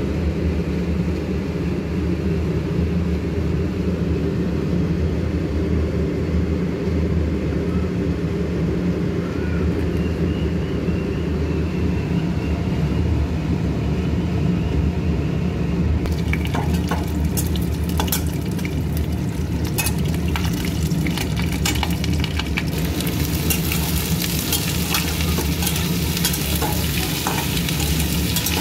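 A steady low hum throughout; about halfway through, sliced onions go into hot oil in a steel kadai and begin to sizzle, with a metal spatula scraping and clicking against the pan as they are stirred.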